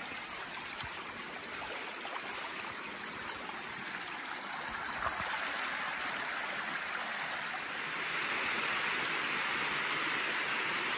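A small woodland creek running over rocks: a steady rush of flowing water that grows a little louder about eight seconds in.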